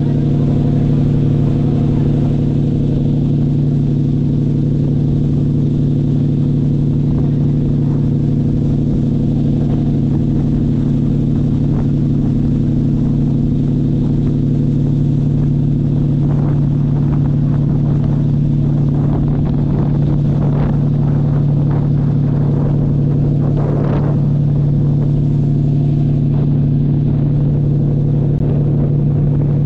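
Passenger ferry's engines running under way, a steady, deep, even drone that does not change, with faint water rush and a few faint brief sounds partway through.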